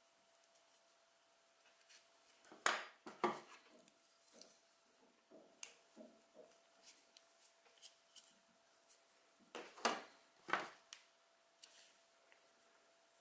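Quiet handling of a small crocheted piece in acrylic yarn: soft rustles and light clicks. Two pairs of sharper knocks, about 3 s in and about 10 s in, as the steel crochet hook is laid on the table and then picked up again.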